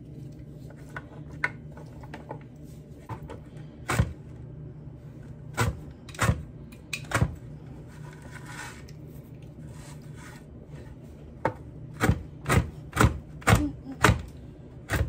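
Chef's knife chopping chocolate-covered toffee bars on a plastic cutting board: sharp knocks, a few spread out at first, then a quick run of about six near the end. A steady low hum runs underneath.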